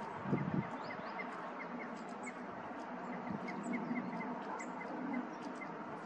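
Small songbirds calling: thin high chirps and a quick run of short repeated notes, about four a second, over steady background noise. A brief low thump comes about half a second in.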